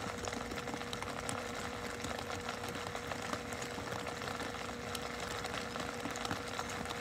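Steady low background hum with a faint constant tone, unchanging throughout.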